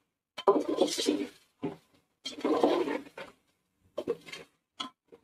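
Slotted metal spatula stirring chicken pieces through masala in a metal pot: about five short, irregular bursts of scraping and stirring, the longest about a second, the loudest near the start.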